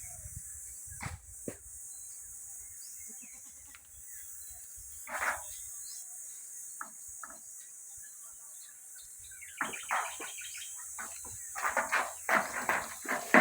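Outdoor farm ambience with scattered bird chirps and clicks. Short, rough goat calls come in from about ten seconds in and grow louder near the end.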